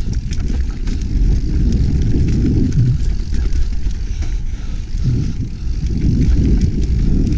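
A 2017 Specialized Stumpjumper mountain bike riding fast down a dirt singletrack: a steady low rumble of tyres on the trail and wind buffeting the camera microphone, with scattered light clicks and rattles from the bike.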